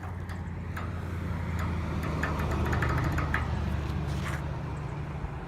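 A car passing close by on the road: a low engine and tyre rumble that builds to its loudest about halfway through and then fades. A quick run of faint ticks comes near the middle.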